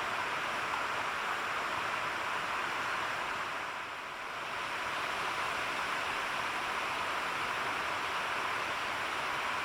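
Mountain stream running: a steady rush of water that dips briefly about four seconds in.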